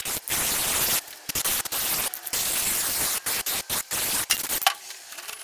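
Aerosol can of spray adhesive hissing in a string of squirts, some about a second long and others brief, with short gaps between them; the spraying stops a little before the end.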